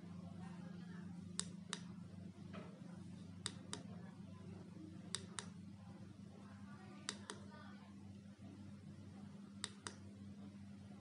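Five pairs of sharp clicks, evenly spaced about two seconds apart, made by a hand at a remote and sound-activated LED bracelet as its light colour changes, over a steady low electrical hum.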